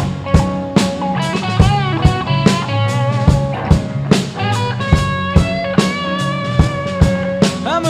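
Blues band playing live with no vocals: a lead guitar plays bent, wavering notes over a steady drum-kit beat and bass.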